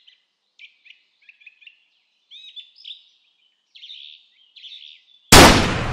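Small birds chirping in short, scattered calls, then about five seconds in a single loud gunshot that trails off in a long rolling echo.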